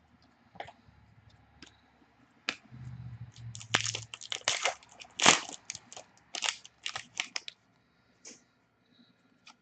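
Crinkling and crackling of a trading-card pack wrapper and plastic as cards are unwrapped and handled: a quick run of sharp crackles and snaps over several seconds, loudest in the middle.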